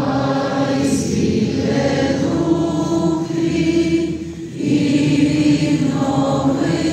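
Choir singing a slow church hymn in long held notes, easing off briefly about four seconds in.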